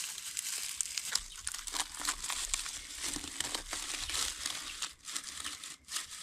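Dry grass crackling and crinkling as it is crumpled and packed into a jiko charcoal stove as kindling, a dense run of small crisp clicks.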